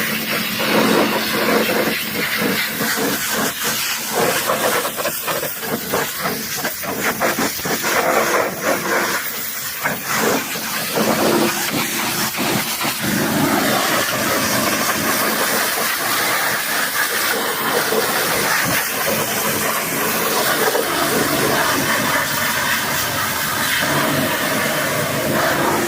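High-pressure washer jet spraying water onto a muddy truck: a loud, steady hiss of spray that turns choppier in the first half and evens out later, with a faint steady hum underneath.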